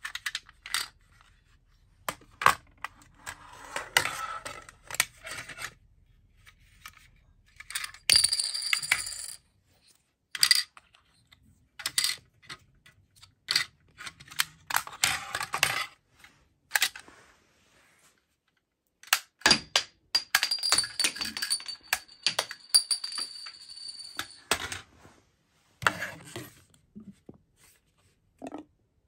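Plastic toy clicks, knocks and clatter as a foam-ball air popper gun and a light-up toy sword are handled and knocked about on a wooden floor. The sounds come in short bursts with gaps, and two longer, busier stretches carry a steady high tone.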